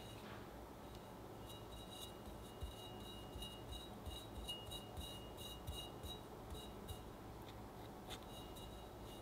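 A metal cake turntable being turned while a scraper smooths buttercream around the side of a layer cake: faint, light ringing ticks, about three a second, that stop a couple of seconds before the end.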